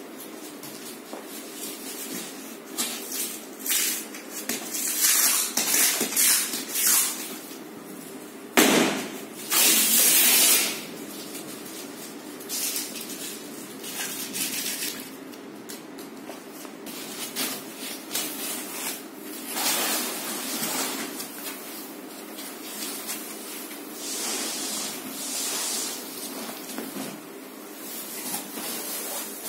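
Plastic and foam packing wrap on a rolled mattress rustling and crinkling as it is handled and pulled, in irregular bursts, the loudest about nine to ten and a half seconds in, over a steady low hum.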